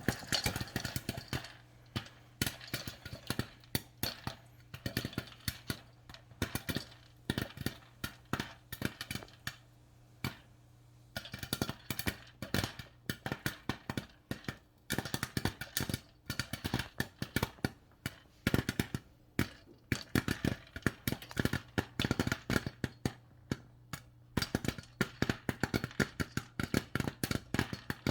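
Popcorn kernels popping in a lidded saucepan of hot vegetable oil on a stove: a rapid, irregular string of sharp pops, thinning briefly now and then, over a faint steady hum.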